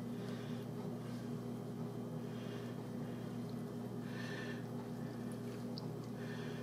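Steady low hum, with a few faint soft squishing sounds as hands push garlic slices under raw chicken skin.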